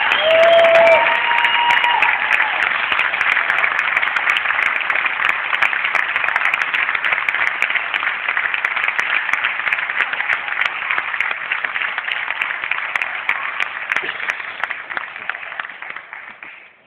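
Concert audience applauding, with a few cheering voices in the first couple of seconds; the clapping dies away near the end.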